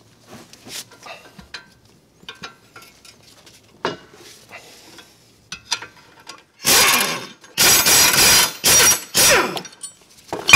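Light metallic clicks of a hand wrench on the caliper bracket bolts, then a pneumatic air ratchet running in four short bursts, the loudest sound, as it spins out the 15 mm caliper bracket bolts.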